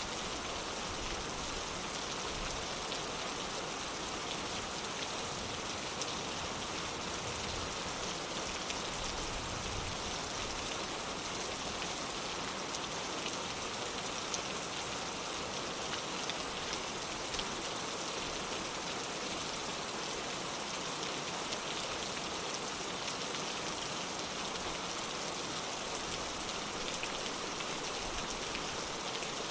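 Steady rainfall with a dense patter of drops striking a surface, even and unbroken; no thunder is heard.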